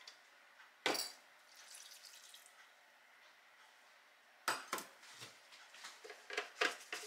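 Light kitchen cookware clatter: one sharp metal clink about a second in, then a run of light knocks and clinks in the second half.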